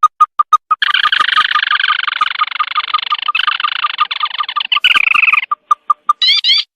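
Recorded lure call of the sintar mata merah, a night bird: short notes repeated about five times a second, then a dense rapid trill lasting about five seconds. A few more single notes follow, and a burst of rising notes comes near the end.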